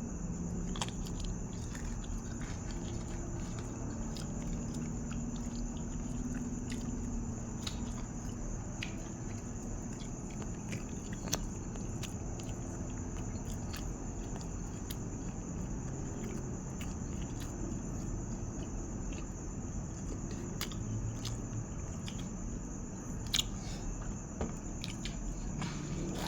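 Close-up chewing of grilled-pork salad and sticky rice: soft wet mouth sounds with scattered small clicks, over a constant faint high-pitched whine.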